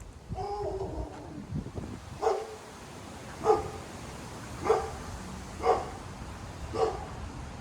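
A dog barking: a longer call about half a second in, then five short barks spaced about a second apart.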